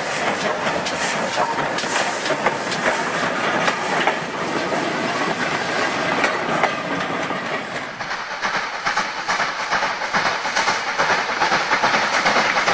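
Model railway trains running on the layout's track: a steady, rapid clatter of wheels over rail joints and pointwork. It grows busier and louder after about eight seconds as a goods train passes.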